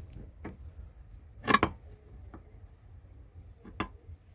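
A few sharp clicks and knocks of metal parts being handled as the new strut mount is set onto the shock absorber, the loudest a quick double knock about a second and a half in.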